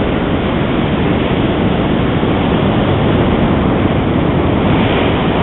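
Ocean surf washing in on a sandy beach: a steady, even rushing noise with a heavy low rumble from wind on the microphone.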